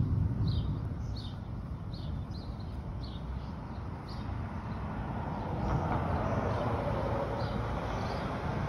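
Low rumble of thunder dying away at the start, with a small bird chirping repeatedly throughout. From about six seconds in, a car drives past on the street with a rising tyre and engine hiss.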